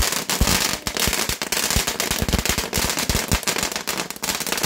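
Fireworks crackling: a dense, irregular run of sharp cracks and pops with no break.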